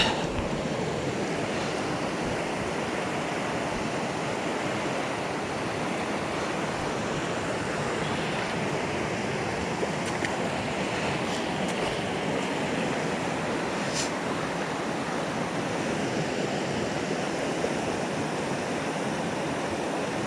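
Steady rush of a small mountain river's flowing water, with a faint tick about fourteen seconds in.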